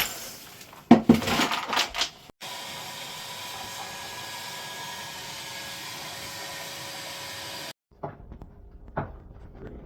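A few sharp clattering knocks of hard objects in the first two seconds. Then a steady, even motor-and-fan hum with a few fixed tones, which starts abruptly and cuts off about five seconds later, followed by faint knocks.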